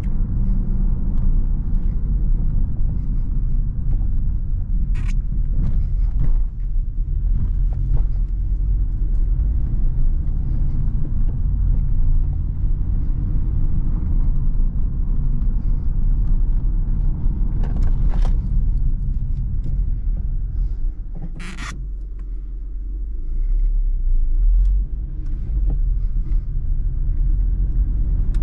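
Steady low rumble of a Skoda Octavia II's 1.6-litre four-cylinder petrol engine and tyre noise, heard from inside the cabin while driving at town speed. The rumble dips for a couple of seconds about three quarters of the way through, then picks up again, and a few short clicks or knocks come through along the way.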